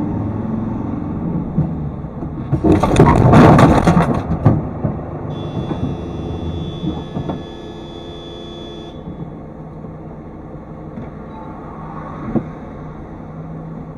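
Low-speed rear-end bump between two cars: a loud crunching clatter lasting about two seconds, a few seconds in, over the low hum of the engine idling. Then a steady high-pitched tone sounds for about four seconds and stops abruptly, and a single sharp knock comes near the end.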